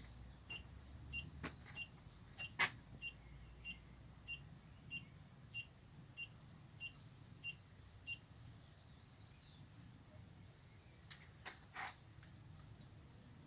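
CAME 7500 three-axis gimbal powering up: a steady series of about a dozen short, high beeps, roughly one every half second, as its controller starts up and the motors engage, then a few sharp clicks near the end.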